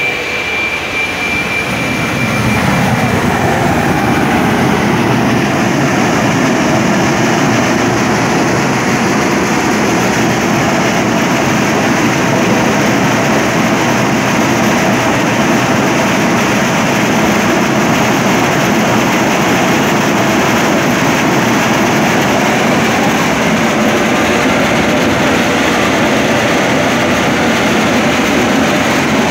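Steam boiler blowdown: steam and boiling water rushing out of the blowdown pipe in a loud, steady hiss, with a high whistle in the first couple of seconds as the flow builds up. The blowdown flushes scale and sludge out of the boiler's water tubes.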